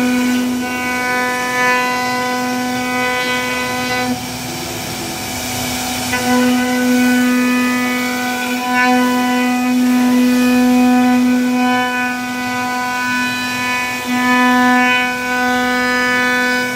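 CNC router spindle whining steadily as its bit carves a relief pattern into a wooden door panel, over a hiss of cutting. About four seconds in, the whine falls away for roughly two seconds, leaving mostly the hiss, then comes back.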